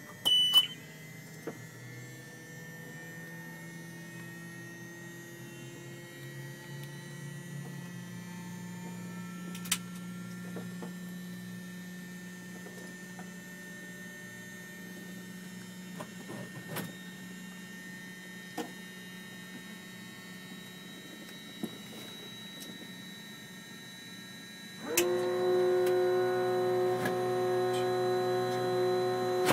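Schweizer 300CBi helicopter cockpit electrics humming with the piston engine not yet started, with a short high beep right at the start and a few switch clicks. About 25 seconds in, a louder electric buzz at a steady pitch switches on suddenly and becomes the loudest sound.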